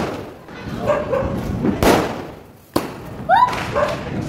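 Diwali firecrackers and aerial fireworks going off, several sharp bangs echoing between the buildings of a narrow street. The loudest comes right at the start, with more about two and about three seconds in.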